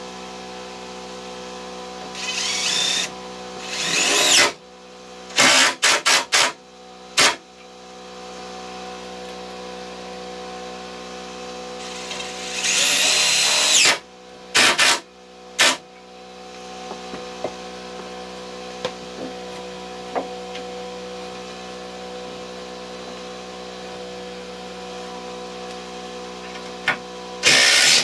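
Cordless drill driving into wooden framing braces, in short bursts with a longer run of about two seconds near the middle.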